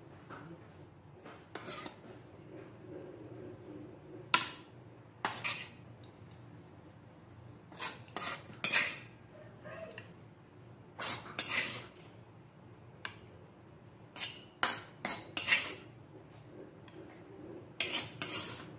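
Wooden spatula scraping sauce and vegetables out of an aluminium pan, with a fork clinking in a serving dish: irregular clusters of short scrapes and taps.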